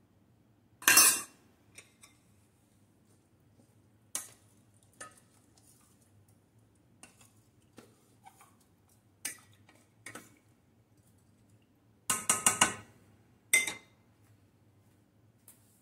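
A utensil clinking and scraping against a stainless steel saucepan as diced squash is stirred, in scattered clatters, the loudest about a second in and a quick cluster about three seconds before the end.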